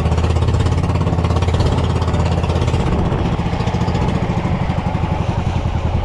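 A fishing boat's engine running steadily under way: a low drone with a fast, even firing pulse.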